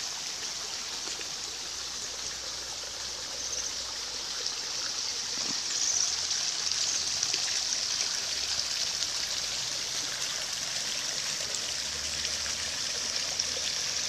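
Mountain river water rushing and splashing over rocks, a steady high hiss that grows a little louder about six seconds in.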